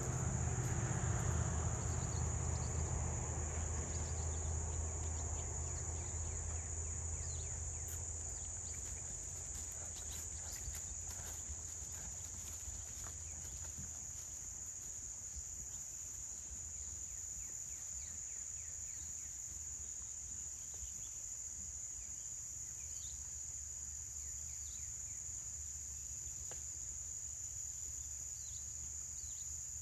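Steady high-pitched chorus of insects. A low rumble is louder at the start and fades over the first several seconds, with a few faint ticks here and there.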